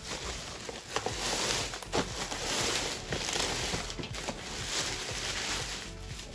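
Packaging being handled, rustling and crinkling with sharp crackles and clicks throughout.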